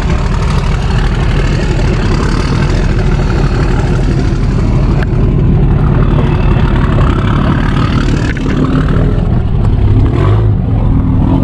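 A truck engine running steadily with a loud, low rumble.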